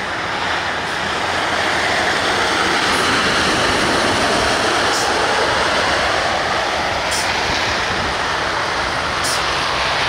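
Snowplow truck passing close, its front plow blade scraping the road and its tires running through slush, a steady rushing, grinding noise that grows louder over the first few seconds and then holds.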